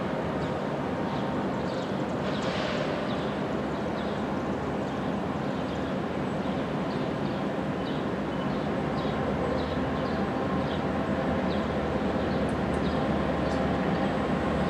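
Distant approaching freight train's diesel locomotive: a low, steady rumble over city background noise, growing slightly louder near the end, with short high chirps every second or so.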